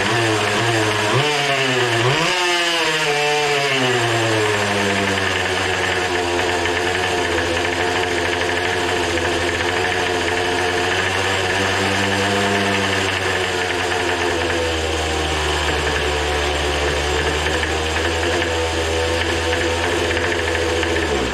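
Small Poulan Pro leaf-blower two-stroke engine running on nitromethane RC car fuel at high revs. It surges up and down for the first few seconds, then holds a steady high-rpm note and cuts out suddenly near the end. The unsteady running fits the uploader's finding that the carburetor cannot supply enough fuel on nitro for the engine to settle.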